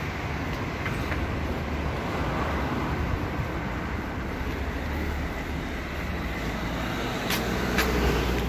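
City street traffic noise: a steady rumble of vehicles passing, with a few sharp clicks near the end.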